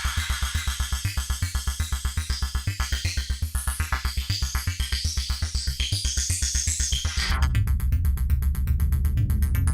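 Modbap Osiris wavetable oscillator in a modular synth patch playing a fast, evenly pulsing electronic bass pattern with a hissy top. About seven seconds in the sound changes abruptly to a denser, steadier low tone and the hiss drops away, as the patch is altered.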